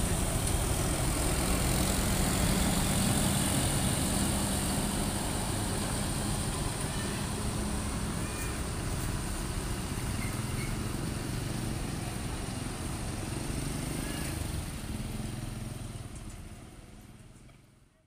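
Mercedes-Benz coach's diesel engine running with a low, steady rumble as the bus pulls away and drives off, with motorcycles passing. The sound fades away near the end.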